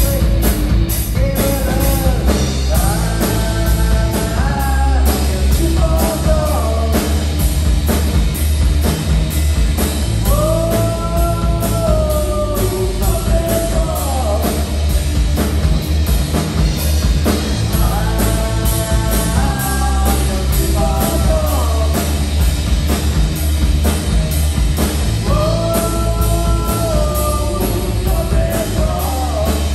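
Live rock band playing amplified electric guitars with a drum kit keeping a steady beat. A melodic line, a couple of seconds long, comes back about every eight seconds.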